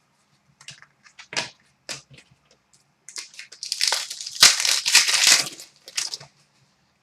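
Light clicks and taps of trading cards being handled, then about three seconds of crinkling and tearing as a foil card pack wrapper is opened.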